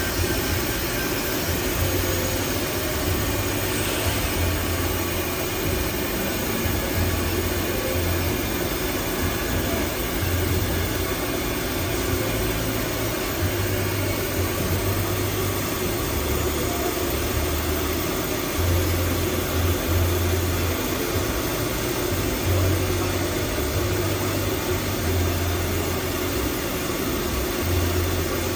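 Steady drone of running factory machinery, with a low hum that comes and goes every second or two.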